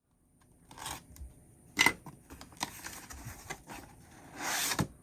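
Handling noises: scattered sharp clicks and taps, the loudest just under two seconds in, and a brief rustle near the end, like a cardboard box and its wrapping being picked up and moved about.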